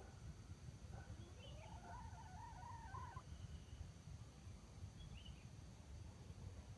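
A faint junglefowl rooster crow, about two seconds long and starting about a second in, over a steady low rumble. A couple of faint short chirps from small birds are also heard.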